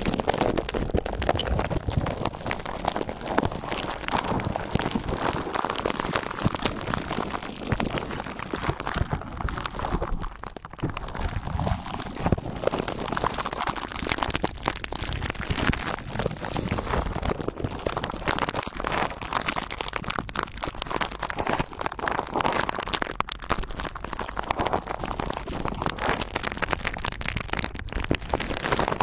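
Clear plastic wrap crinkling and crackling as fingertips squeeze and rub it close to the microphone, a dense, continuous run of tiny crackles.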